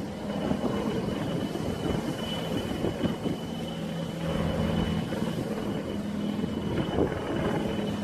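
HAL Dhruv Advanced Light Helicopter hovering, a steady high turbine whine over a low steady drone, with wind buffeting the microphone.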